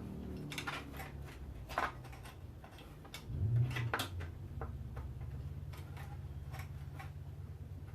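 Scattered small clicks and taps of a USB 3 PCI-E expansion card and its cables being handled and fitted inside a PC case, with a dull bump about three and a half seconds in, over a low steady hum.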